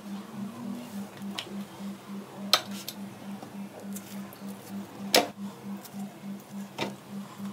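Cooked green bananas being peeled by hand over a stainless steel plate, with a few sharp clinks as the fruit and fingers knock the plate, the loudest about five seconds in.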